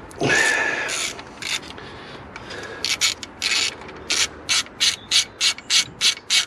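Socket ratchet clicking as it undoes a 16 mm alternator mounting bolt through an extension. Back-and-forth strokes, settling into a regular run of about three rasps a second in the second half.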